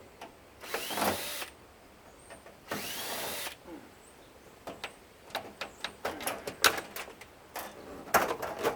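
Cordless drill-driver run in two short bursts, its motor whine rising and falling each time, as it backs out screws holding a washing machine's drain pump. These are followed by a run of clicks and knocks from loosened parts being handled.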